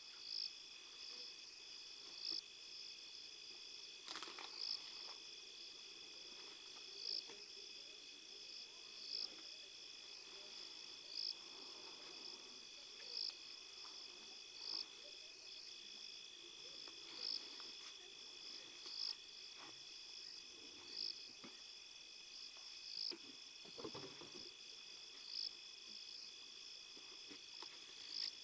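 Night insects trilling steadily, with a sharp high chirp repeating about every two seconds. Underneath, an African elephant feeding on bushes makes irregular rustling and crunching of foliage, strongest about four seconds in and near 24 seconds.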